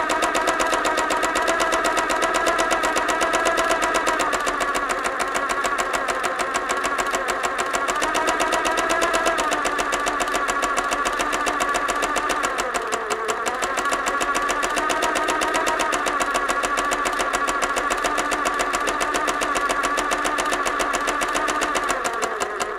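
Sewing machine running fast and steadily, the needle mechanism clattering in a rapid, even rhythm. Its speed sags briefly about thirteen seconds in, then picks up again.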